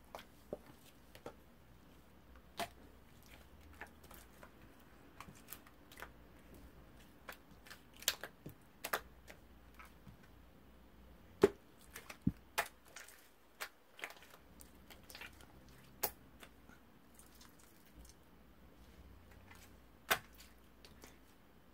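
Scattered light clicks and taps at uneven intervals, sometimes two or three close together, over a quiet room background.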